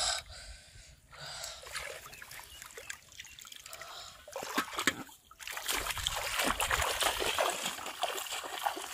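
Shallow paddy-field water splashing and sloshing as a person wades through it and works their hands in it, in irregular splashes that grow busier and louder about halfway through.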